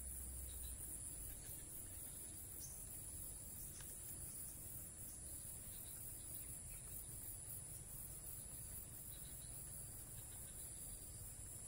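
Faint, steady high-pitched insect chorus, a continuous trill with a fast pulse.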